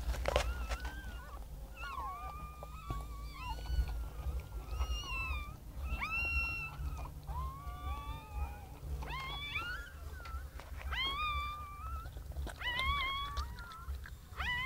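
Newborn puppies crying: a string of short, high, rising-and-falling squeals and whines, about one a second.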